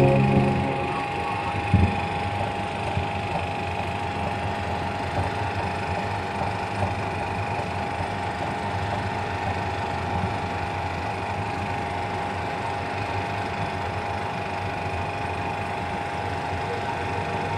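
16 mm film projector running, with a steady, fast mechanical clatter from its film transport and a brief knock about two seconds in.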